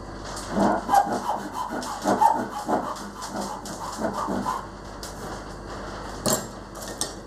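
Hand sawing across timber with a brass-backed dovetail saw: quick push-and-pull strokes, a few a second, for about four seconds, cutting the sides of dovetails. A sharp knock comes near the end.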